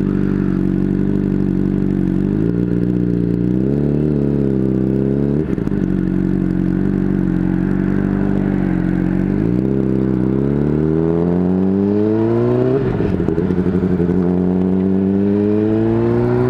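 Honda CBR600RR's inline-four engine running under way at a steady pitch, then accelerating with its pitch climbing. It drops once at an upshift near the end and climbs again.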